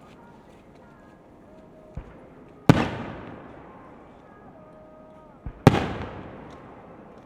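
Aerial fireworks shells bursting: two loud bangs about three seconds apart, each just after a fainter pop, each trailing off in a long rumbling echo over a couple of seconds.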